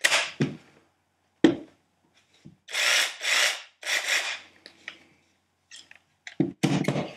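Plastic handling sounds as a lithium-ion battery pack on a homemade adaptor is worked into an old Bosch cordless jigsaw: a sharp click about a second and a half in, three short scraping swishes around the middle, and a few clicks near the end.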